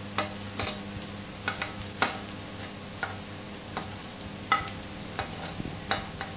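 Spoon scraping shredded cabbage off a plate into a nonstick pan, with irregular knocks and clinks against the plate and pan, a few ringing briefly. Underneath, a light sizzle of vegetables frying in hot oil.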